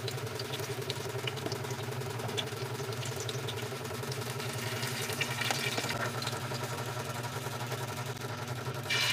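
Banana fritters frying in hot oil in a metal pan, with a metal spatula clicking and scraping as it lifts them out, over a steady low hum. Near the end a louder sizzle starts as fresh batter goes into the oil.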